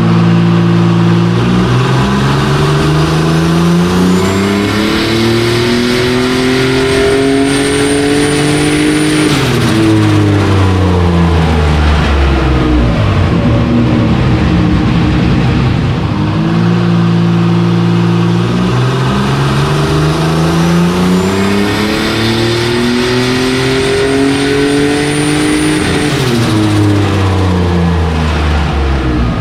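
Turbocharged Holden Commodore Ecotec V6 on a chassis dyno making two pulls: each time the engine note climbs steadily for about nine seconds, then falls away as it decelerates. The second pull starts about halfway through.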